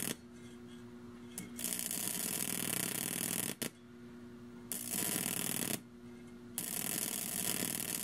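High-voltage arcs from a microwave oven transformer's voltage-doubler circuit, over 5,000 volts, drawn along the wires with a wooden stick. Three buzzing, crackling arcs of one to two seconds each, with a couple of sharp snaps. Between them the transformer hums steadily.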